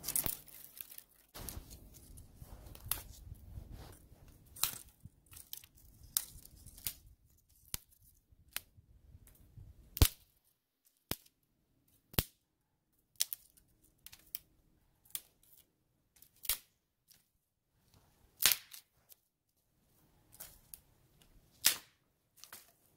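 Wood cracking and popping: sharp single snaps at irregular intervals, about one every second or two, a few of them loud, over a low rumble that dies away about halfway through.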